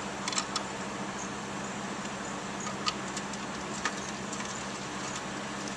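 A few light, sharp clicks and ticks from handling parts of a shoebox light fixture, over a steady background hum.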